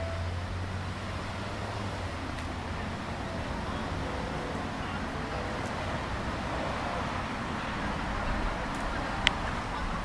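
Steady background hum of distant road traffic heard outdoors, with one sharp click about nine seconds in.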